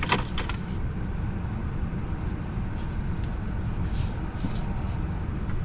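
Steady low rumble of background noise inside a stationary vehicle's cabin, with a few short clicks in the first half second.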